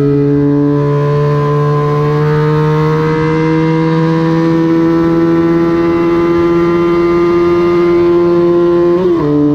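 Vintage racing motorcycle engine under load, its pitch climbing slowly as it pulls through a gear. Near the end there is a brief break and the pitch drops: a quick upshift.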